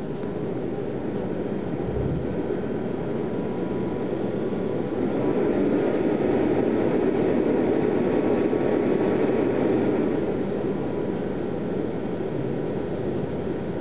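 Cheap, horribly noisy stock cooling fan of a Rigol DP832 bench power supply running during start-up, a steady rush of air with a faint whine. About five seconds in the fan speeds up, louder and higher in pitch, then slows back down about ten seconds in. A low thump comes about two seconds in.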